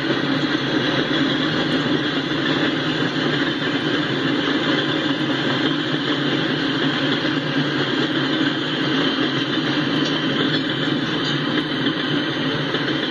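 Freight cars of a Norfolk Southern coal train rolling by, a steady noise of steel wheels running on the rails.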